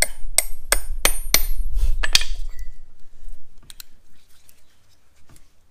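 Ball-peen hammer striking a small steel drift held against a suspension bushing's inner metal sleeve to knock the sleeve out: about seven sharp, ringing metal-on-metal blows, roughly three a second, that stop after a couple of seconds, followed by faint clicks of parts being handled.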